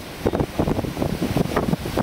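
Wind buffeting the microphone in uneven gusts, over the wash of surf.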